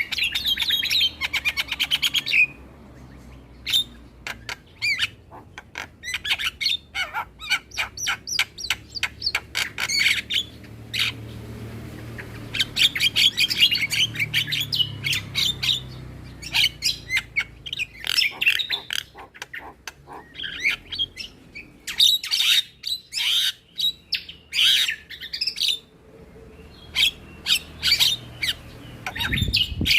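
Javan myna calling in fast runs of sharp chirps and harsh squawks, broken by short pauses.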